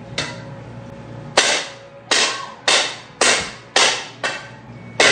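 A rapid series of sharp, hard strikes, about seven of them at roughly two a second, each dying away quickly.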